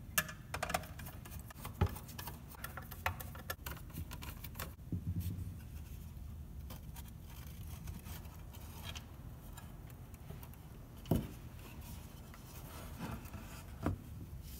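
Screwdriver backing small screws out of a metal instrument panel: faint repeated clicks and scrapes of metal on metal. Later come a few sharp knocks as the loosened panel is handled and set down.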